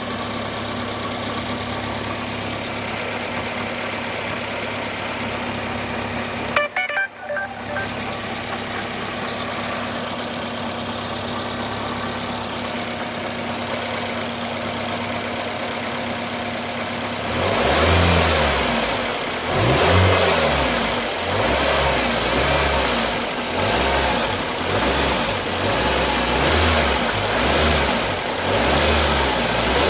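Toyota Vitz VVT-i petrol engine idling steadily, with a brief drop in the sound about seven seconds in. A little past halfway it is revved up and down over and over, roughly every two seconds. The engine has what the owner calls a bad sound.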